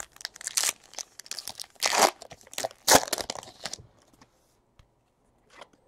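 Foil wrapper of a baseball card pack being torn open by hand, crinkling in a run of ripping bursts over the first four seconds, then fading to a few faint ticks.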